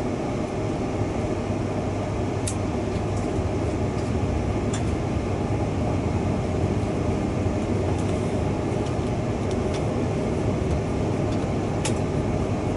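Train running noise heard from inside the passenger car as it pulls out of a station and picks up speed: a steady rumble of wheels and traction equipment with a low hum and a few sharp clicks.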